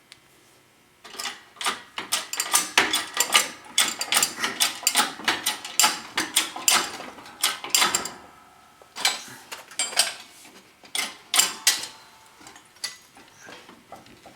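Metal clicking and clanking from a 12-ton hydraulic shop press being worked to crimp a terminal lug onto 2-gauge cable. The rapid, irregular clicks start about a second in and thin out near the end.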